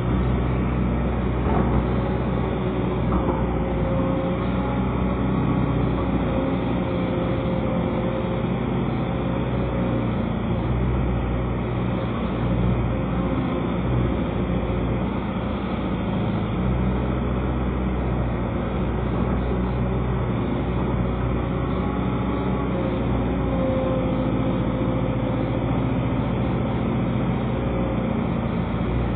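Excavator's diesel engine running steadily, its note swelling and easing a little at times as the machine works.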